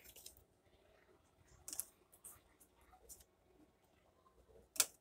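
Pokémon trading cards being handled and flipped through: scattered light clicks and snaps, the sharpest just before the end.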